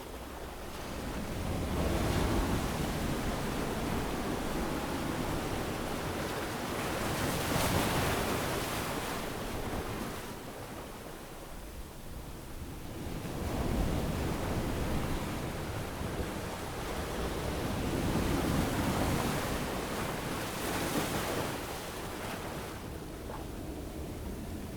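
Gentle ocean waves washing onto a sandy beach, the surf swelling and easing back every few seconds.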